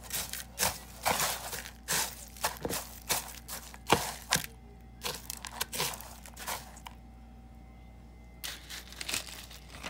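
Crushed barbecue potato chips crunching and crackling as a chicken strip is pressed and turned in them with metal tongs: a quick run of sharp crackles that stops about two-thirds of the way through and starts again near the end.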